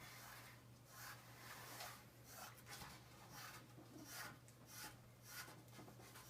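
Faint, repeated rubbing strokes of a hand smoothing over freshly wrapped cloth hockey tape on a hockey stick's knob, a little under two strokes a second.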